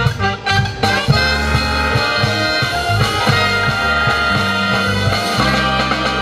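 Big band of saxophones, trumpets, trombones, bass and drum kit playing together, with drum strokes in the first second and then sustained brass and saxophone chords.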